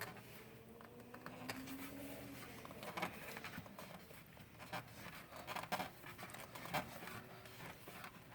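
Oil filter pliers gripping and turning the oil filter housing cap to work it loose, giving faint, irregular clicks and scrapes.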